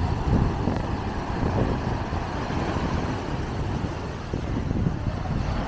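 Sea surf breaking and washing up a sandy beach: a steady low rumble, with wind buffeting the microphone.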